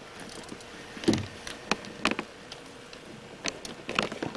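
Handful of irregular sharp knocks and taps, about five over four seconds, as a freshly netted fish in a landing net is handled aboard a small boat.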